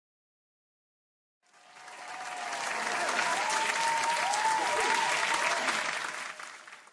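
Crowd applause with a few whistles, swelling in about a second and a half in and fading away near the end.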